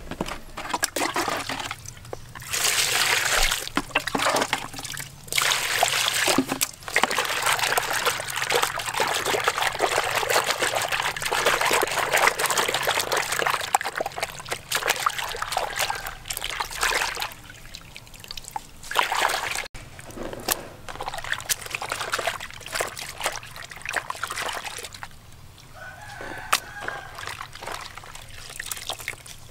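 Hands washing and rubbing raw squid in a plastic basin of foamy water: irregular sloshing and splashing that comes and goes. After a break about two-thirds of the way through it gives way to quieter, scattered wet handling sounds.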